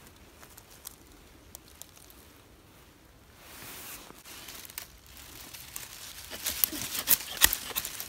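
Dry pine needles, leaves and twigs crunching and crackling: scattered faint clicks at first, building to dense, loud crackles in the last two seconds.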